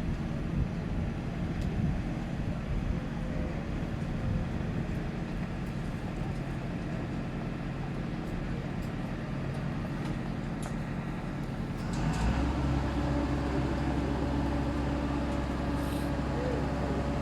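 Engine of a large working vehicle running steadily; about twelve seconds in a louder, deeper drone sets in, as if it is revved up or put under load.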